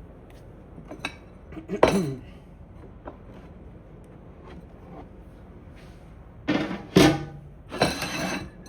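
Kitchen dishes and utensils clinking and knocking: a few separate clanks with a short ring after them, the loudest about two seconds in and a busier cluster near the end.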